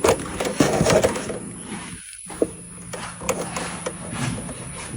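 Irregular chirping and clicking from an electric car's electrical box while it charges. This is the abnormal squeak that comes with the charging current rising. The sound cuts out briefly about two seconds in, and a faint steady hum runs after that.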